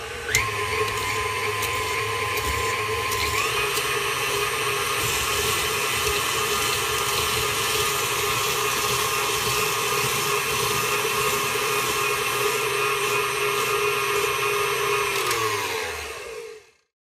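KitchenAid stand mixer driving its spiralizer attachment as it peels, cores and slices a pear: a steady motor and gear whine that steps up in pitch about three seconds in, then slows and stops near the end.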